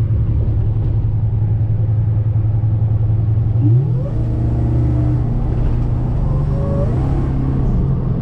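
A truck's engine running with road noise while driving. The engine note climbs under acceleration about three and a half seconds in, and rises again near seven seconds.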